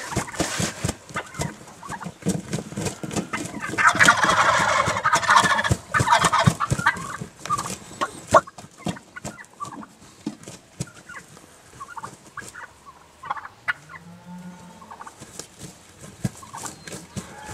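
A group of jakes (young male wild turkeys) gobbling and calling, loudest in a long stretch of gobbling about four seconds in, with scattered shorter calls after that.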